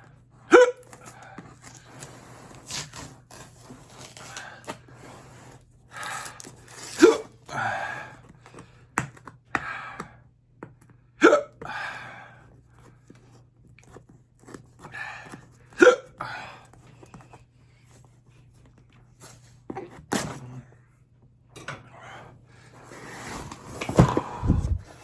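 A man hiccuping sharply about five times, several seconds apart, with breathing and mouth noises between, brought on by the heat of a super-hot chili pacifier lollipop. A low thump near the end.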